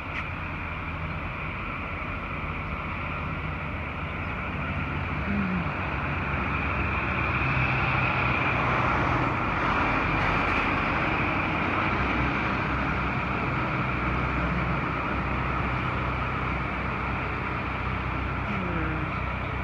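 Steady vehicle and road noise, growing a little louder partway through and then holding.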